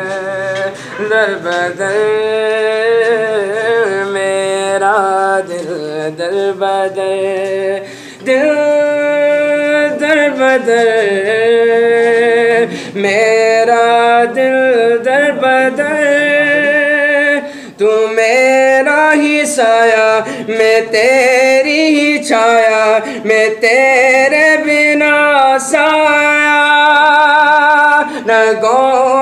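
A young man singing solo without accompaniment, holding long notes with a wavering, ornamented melody and short pauses for breath.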